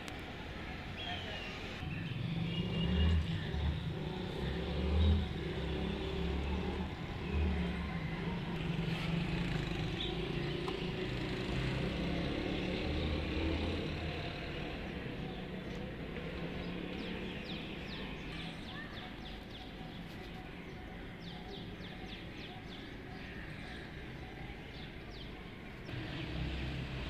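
A motor vehicle's engine running, loudest in the first half, with birds chirping.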